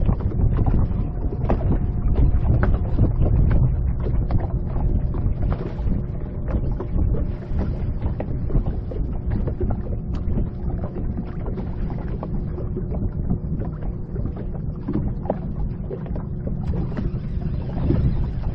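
Wind buffeting the microphone and choppy water lapping against a fishing boat's hull, a steady rumble with many small scattered clicks and slaps throughout.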